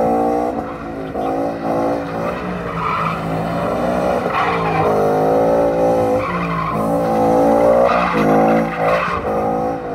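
Drift car sliding in circles, its engine revving hard and rising and falling in pitch as the throttle is worked, with tyres squealing in repeated bursts.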